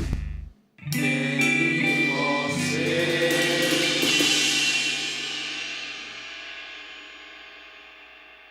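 Music: after a brief break, the song's final chord rings out and slowly fades away to near silence.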